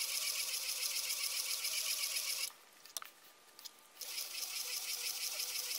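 Erlbacher circular sock knitting machine running, its needles clattering steadily as the cylinder turns. It stops for about a second and a half midway, with a single click in the gap, then starts up again.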